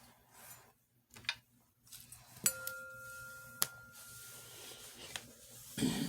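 A small bell-like chime struck twice, about a second apart, ringing with two clear steady tones that fade over a couple of seconds.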